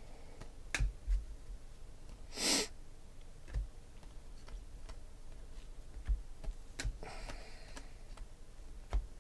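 Stiff chrome Panini Prizm trading cards being flipped through by hand, giving scattered light clicks and soft slides, with a short hiss about two and a half seconds in.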